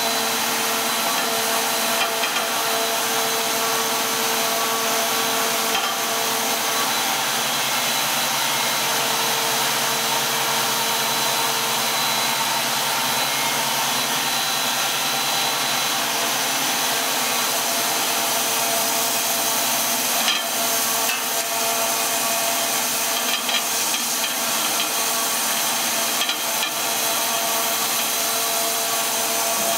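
Two-stage plastic recycling extruder running: a loud, steady rush of motor and cooling-fan noise with a few steady tones in it. A handful of short clicks and knocks come in the last third.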